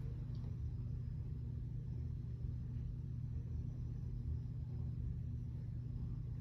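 Ceiling fan running, a steady low hum.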